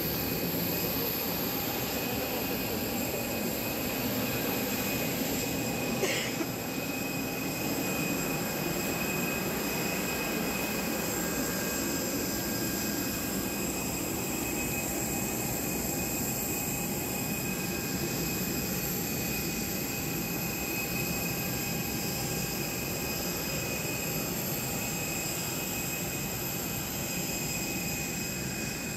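Steady whine of a jet airliner's turbine on the apron: a few fixed high tones over a continuous rush. A single short knock about six seconds in.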